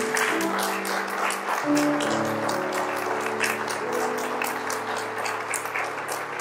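Audience applauding over slow instrumental music with long held notes; the chord changes a little under two seconds in.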